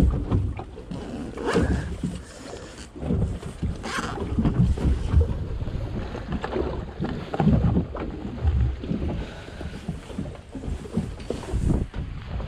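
Wind gusting on the microphone aboard a small boat at sea, with water washing against the hull and a few short knocks.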